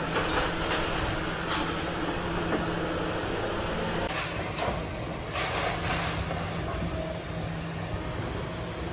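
Demolition excavator working, its engine running steadily, with a few sharp cracks and crunches of breaking debris.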